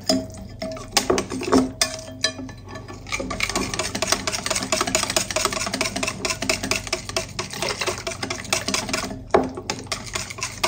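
Wire whisk beating thin crepe batter in a bowl: a fast, steady clatter of the wires against the bowl, with a few louder knocks.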